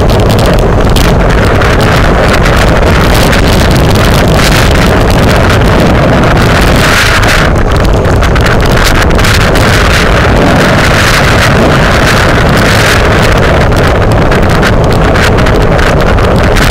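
Loud, steady wind buffeting on a bicycle-mounted camera's microphone at racing speed, close to clipping, with irregular gusty surges.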